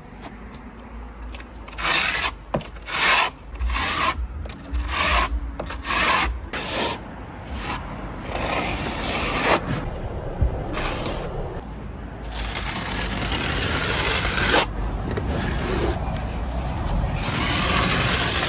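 Steel trowel and float working a thin coat of silicone render over a wall: a run of short rasping strokes, then from about eight seconds in a longer, nearly continuous scraping as the render is spread flat.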